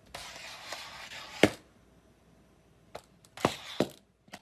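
A few sharp clicks and knocks over a faint hiss, the loudest about a second and a half in, with a small cluster of clicks near the end.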